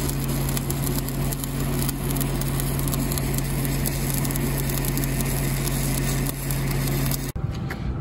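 Stick (manual metal arc) welding: the arc crackles and sizzles steadily, with a steady low hum underneath. It stops suddenly near the end.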